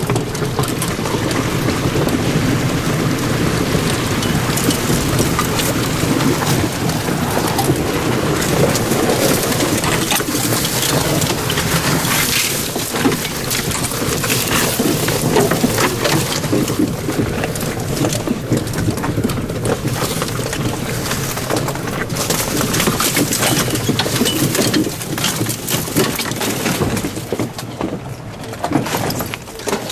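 Polaris Ranger EV's tyres and chassis crunching, rattling and splashing over creek-bed rocks, gravel and shallow water in a steady, dense crackle. The electric drive adds no engine sound, so the terrain noise is all that is heard.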